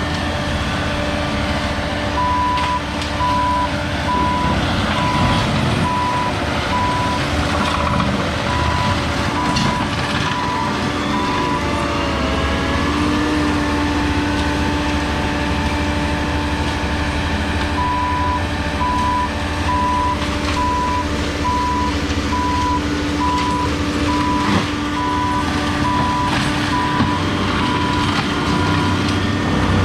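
Heavy equipment diesel engine running steadily while the machine reverses, its backup alarm beeping at an even pace in two long spells, stopping for a few seconds in the middle. The engine note shifts slightly as the beeping stops.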